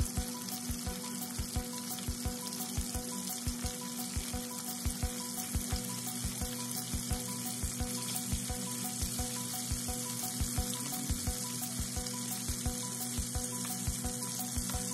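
Chicken pieces frying in hot oil in a nonstick pan: a steady sizzle, dotted with many small pops and crackles. A faint steady hum runs underneath.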